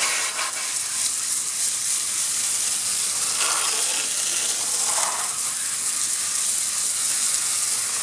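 A garden hose spray nozzle jets water onto the fins of a York air conditioner condenser coil, rinsing debris off the coil. The steady hiss of the spray runs unbroken.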